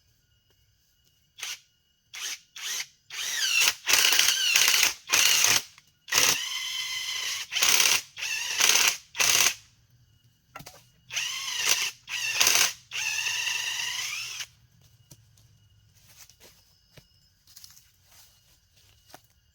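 Power drill run in a string of short trigger bursts and two longer runs of about a second and a half, its whine rising in pitch as several bursts start.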